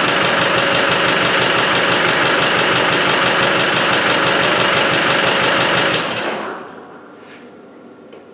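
Land Rover Defender 110's freshly rebuilt diesel engine idling with an even beat, then shut off about six seconds in and running down. The engine is smoking and pushing oil out of its breather, which the owner suspects is a broken piston ring.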